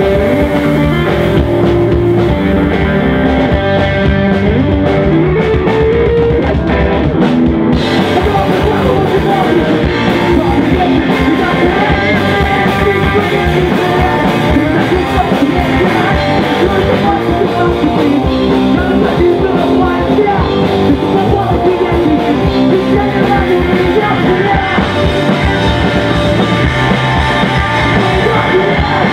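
A live rock band playing loud and without a break: electric bass, electric guitar and a drum kit, with a singer on vocals. The cymbals and high end come in more fully about eight seconds in.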